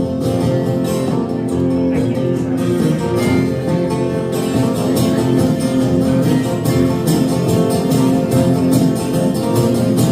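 Acoustic guitar strummed and picked in a steady rhythm, the instrumental opening of a song before any singing.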